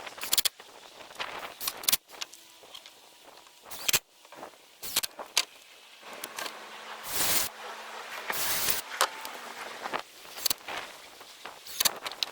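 Clicks and wooden knocks of pine boards and tools being handled during nest-box assembly, with two short louder rasping noises about seven and eight and a half seconds in.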